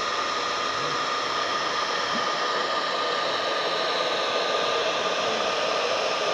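Nova handheld hair dryer running steadily, a constant rush of blowing air with a thin steady whine.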